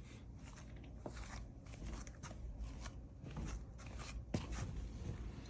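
Faint handling noise: a few light, scattered clicks and rubs of plastic Lego pieces being moved by hand, over a low steady hum.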